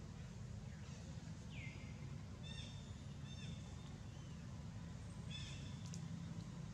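Short, high bird calls over a steady low hum: a downward-sweeping call about one and a half seconds in, then clipped calls with several overtones, twice in quick succession and once more near the end.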